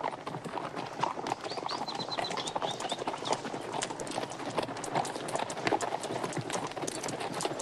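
Hoofbeats of a group of horses galloping together, a dense, continuous patter of many hooves.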